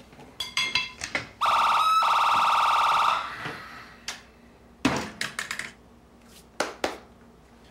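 A small handheld electric appliance's motor whirring with a steady high whine for under two seconds, then switched off, followed by a few sharp knocks and clicks.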